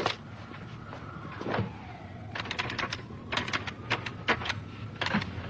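Telephone being picked up and dialled: a clunk as the handset is lifted, then about halfway through a quick run of keypad button clicks in short groups as the number is punched in.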